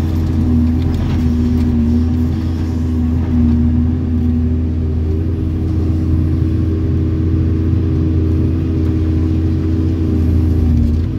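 Hydraulic excavator's diesel engine running steadily at working speed, heard from inside the operator's cab while the machine digs and swings loads of soil.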